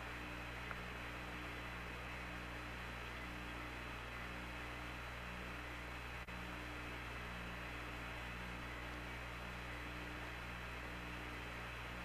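Steady hiss and low hum of an open space-to-ground radio channel, with a faint low tone pulsing on and off about once a second.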